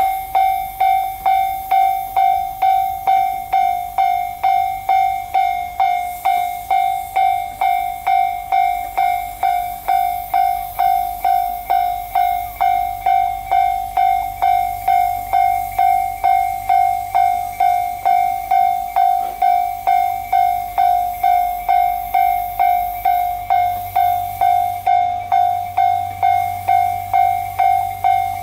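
Japanese level-crossing electronic warning bell ringing on and on in even dings, about two a second, over a low steady rumble.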